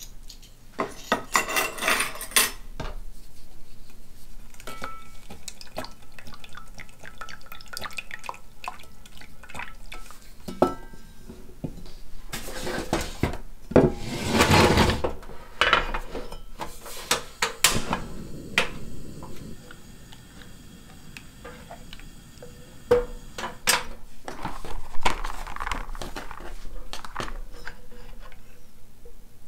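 Saucepan and utensil handling: clinks, knocks and scraping as soy milk is mixed and stirred with a silicone spatula in a metal saucepan. A louder rushing stretch comes about halfway through.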